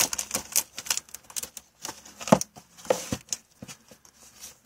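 Plastic Blu-ray cases clicking and knocking against each other as they are taken out and pushed back into a row on a shelf: a quick, irregular run of clacks.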